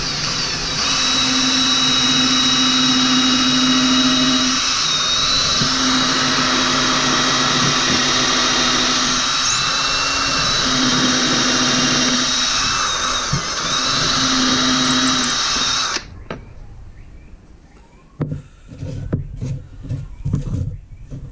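Ryobi cordless drill running steadily as its bit bores a dowel pin hole into a block of wood, the bit working hard enough to make the wood steam; the drill stops suddenly about sixteen seconds in, followed by light knocks and handling of the wood on the bench.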